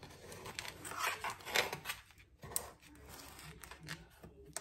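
Knife cutting a piece of strawberry pie, scraping and crunching through the graham cracker crust against the foil pie tin in short, irregular strokes.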